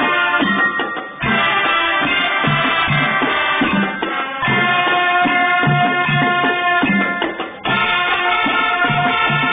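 Marching band playing: held chords over a steady drum beat, with the music dropping off briefly about every three seconds between phrases.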